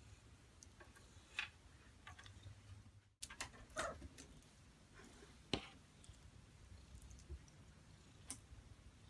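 Quiet room with faint, scattered short clicks and soft rubbing or handling noises, a few sharper ones spread irregularly through the stretch.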